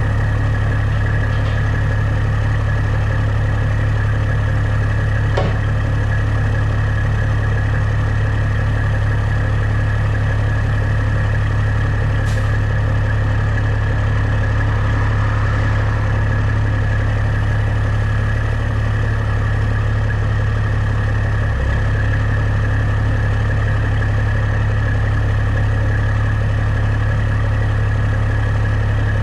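Large diesel engine running at a steady speed: a constant low hum that holds unchanged, with a few faint clicks over it.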